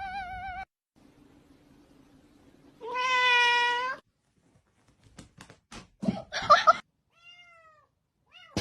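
Domestic cat meowing: a long wavering meow cut off just after the start, then a second drawn-out meow about three seconds in. Several clicks and knocks follow, then a short faint call near the end.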